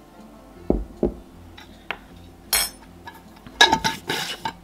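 A metal spoon knocking and clinking against a ceramic bowl as powder is spooned in. There are a few sharp taps about a second in, a ringing clink near the middle, and a quick run of clinks and scraping near the end.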